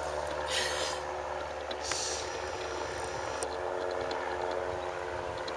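Steady drone of a distant motor with even overtones. Two brief hissing rustles come about half a second and two seconds in.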